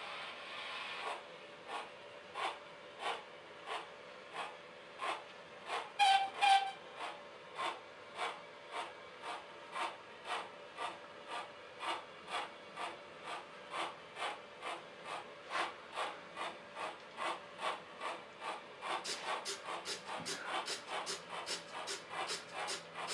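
Sound decoder in an OO gauge model steam locomotive playing steady exhaust chuffs through its small speaker as the engine hauls a goods train, the beats quickening near the end. About six seconds in the whistle gives two short, loud toots. There is a faint steady hum underneath and a hiss in the first second.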